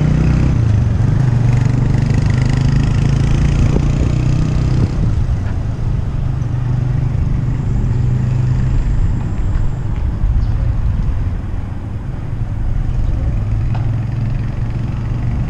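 Steady road traffic with motor vehicles running close by, and a low rumble that stays level throughout.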